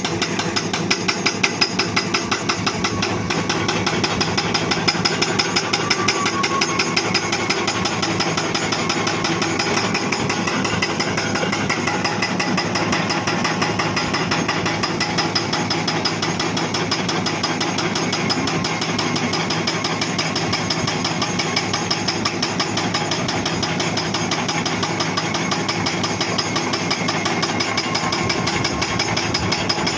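Hydraulic breaker hammer on a Hitachi Zaxis 240 excavator pounding rock in a steady, rapid run of blows, over the excavator's running engine.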